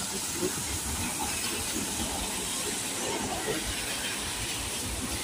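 Steady hiss of drizzling rain and traffic on a wet city road.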